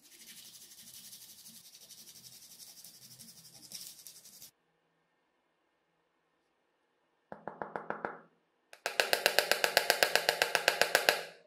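Sandpaper rubbing back and forth over a hardened glue patch on hard plastic, a steady hiss for about four and a half seconds. After a pause, a utility knife blade scrapes across the plastic, chattering at about ten strokes a second in two runs, the second longer and louder.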